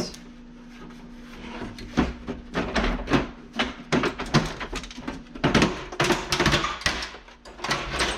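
Repeated knocks, clunks and rattles of a dehumidifier's casing and parts being handled and worked apart, in quick irregular succession.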